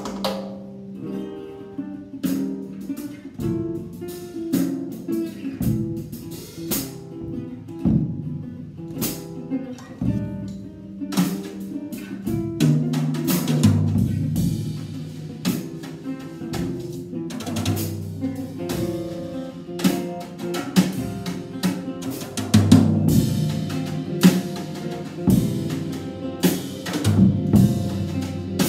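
Acoustic guitar being played, with a drum kit playing along in irregular hits that come thicker in the second half.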